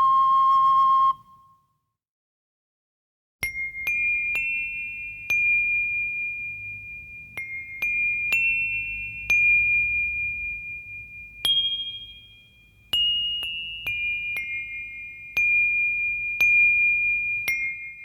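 A high, bell-like tuned metal percussion instrument struck note by note in a slow melody, each note ringing and fading. Before it, a held whistle-like note ends about a second in, followed by a short silence.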